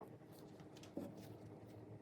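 Faint scratching and handling noises, with one soft knock about a second in.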